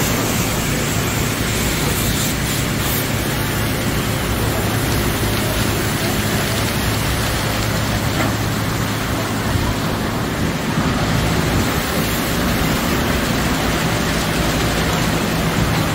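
Automatic car wash tunnel running: a steady rush of water spray over a constant low machinery hum.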